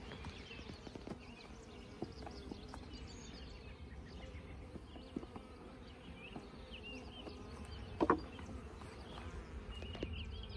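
A swarm of honey bees buzzing steadily around an open nuc box, with scattered light clicks and knocks of a metal hive tool against wooden top bars. A brief louder sound about eight seconds in.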